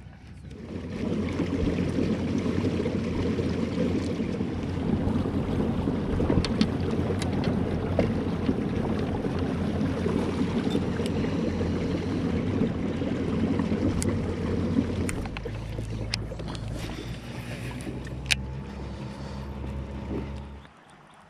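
A motorboat running across the lake, a steady rumble of engine, hull and water. About three-quarters of the way through it eases to a lower, quieter run, then cuts off abruptly near the end.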